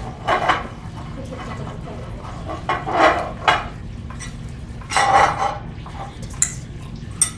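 Glass beakers clinking and a rod scraping inside glass while slime is worked out of them, in a few short bursts, with two sharp clicks near the end. A steady low hum runs underneath.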